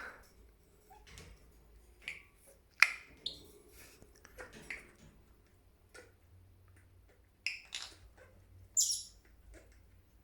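Senegal parrot making scattered sharp clicks and short squawks, with a shrill, high squawk near the end.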